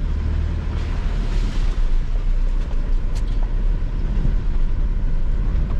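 Mitsubishi L200 Triton pickup driving up a rough hill track in low range, two-wheel drive: a steady low engine rumble under load with the noise of the truck working over the uneven ground, swelling briefly about a second in.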